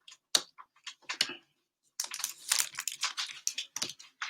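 Trading cards being handled: a few light clicks, then about two seconds of dense crinkly rustling.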